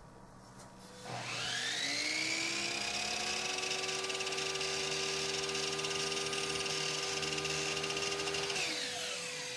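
Chicago Electric sliding miter saw motor spinning up with a rising whine about a second in, then running steadily as it cuts the door casing. Near the end it winds down, falling in pitch.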